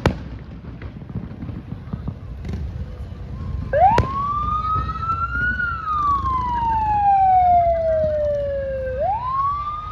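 An emergency vehicle siren in wail mode starts about four seconds in, with a quick rise in pitch, a slow climb and then a long slow fall, rising again near the end. A single sharp bang comes just as it starts.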